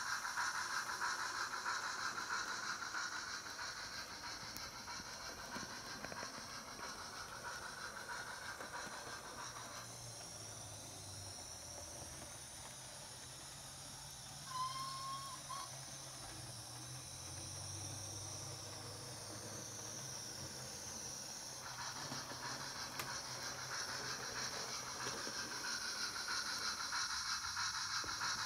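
A Train Tech SFX Sound Capsule riding on an N-scale steam locomotive's tender, playing recorded steam-locomotive running sounds through its rubber amplifying tube: a steady hiss of steam. It grows fainter through the middle while the model is on the far side of the loop, and swells again near the end.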